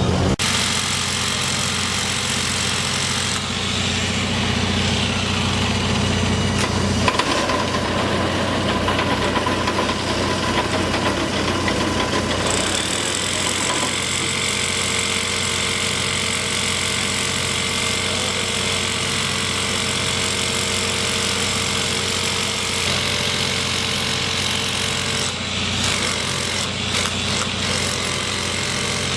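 Construction machinery engine running steadily, its tone shifting a few times.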